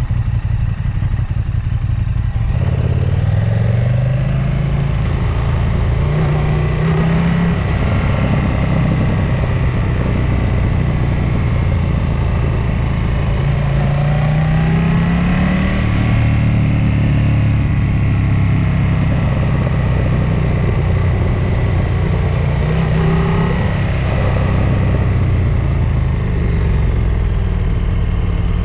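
Motor vehicle engine heard from on board, descending a mountain pass. Its revs rise and fall several times over steady road and wind noise.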